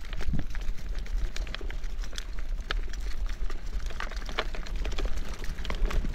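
A mountain bike rolling over a stony track: many quick clicks and rattles from tyres and frame, over a steady low rumble of wind on the microphone.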